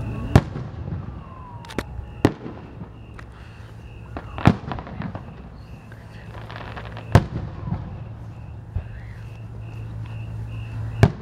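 Aerial fireworks shells bursting: about six sharp booms at irregular spacing, the loudest about half a second in, others near 2, 4.5, 7 and 11 seconds, each with a short rumbling tail. A spell of crackling comes just before the burst near 7 seconds.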